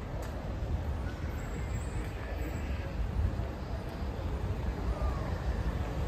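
Street ambience dominated by a steady low rumble of traffic.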